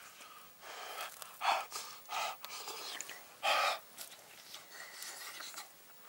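A man eating hot food from a hot pot, huffing sharp breaths in and out through his mouth: three short breaths, the last the loudest.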